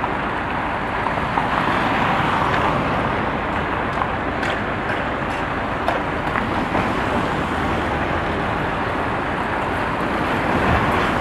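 Steady vehicle and road noise with a few faint short knocks.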